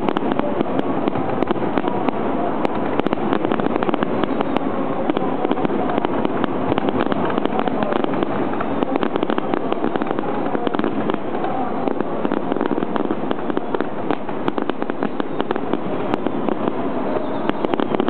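Aerial fireworks bursting in a dense, continuous barrage of pops and crackles, with no pause.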